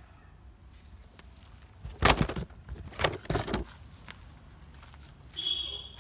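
Hollow plastic toy vehicles knocking and clattering together as a toy bus is put into a cardboard box with them, in two bursts about two and three seconds in.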